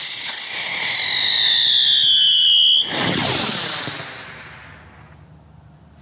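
Blackboxx Feuerteufel whistling spinner firework rising: a loud whistle starts suddenly and slides slowly down in pitch for nearly three seconds. It then cuts off into a rushing hiss that fades away over about two seconds.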